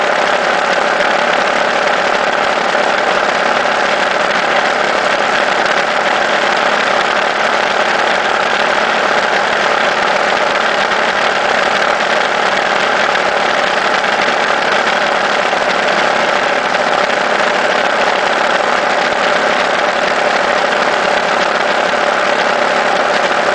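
Engine and road noise of a vehicle cruising steadily, heard on board, with an even drone that does not change in pitch or level.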